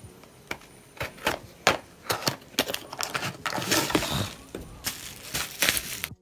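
A cardboard product box being cut open with scissors and pulled apart: a run of sharp clicks and snips, with a longer crackling, tearing rustle of packaging in the middle and again near the end.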